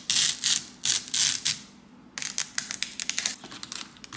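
Packaging being handled and opened by hand: a few loud bursts of crinkling and rustling, a short pause about two seconds in, then a run of small quick clicks and crackles.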